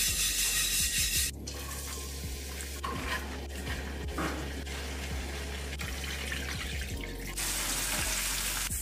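Wok cooking sounds: glutinous rice toasting in a dry wok, then diced vegetables and mushrooms tipped into the pan, and near the end a broth simmering with a steady hiss, over light background music.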